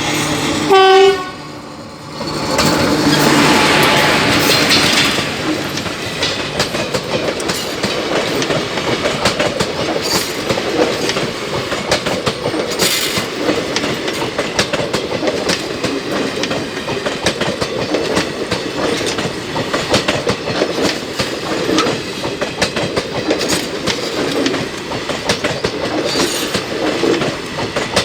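WAP4 electric locomotive horn honks once loudly, briefly, about a second in. Then the moving express train runs on with a steady rumble and clickety-clack of wheels over rail joints, after a rush of noise that swells and fades between about two and five seconds in.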